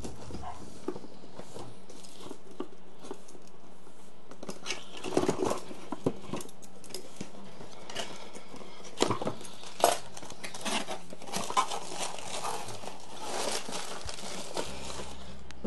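Cardboard box being opened and bubble-wrap padding pulled out: scattered rustles, crinkles and light knocks of packaging being handled.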